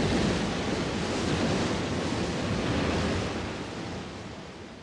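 Sound effect of an energy-blast explosion: a rushing noise that holds for about three seconds, then fades away.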